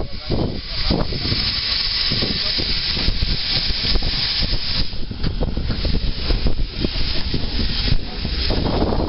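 Steam locomotive running, heard from its footplate: a steady hiss of steam over the rumble and clatter of the engine and wheels. The hiss eases about five seconds in and swells again near the end.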